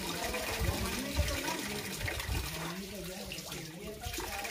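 Water from a small spring trickling down the rock into a pool, with splashing as cupped hands scoop water and splash it onto faces.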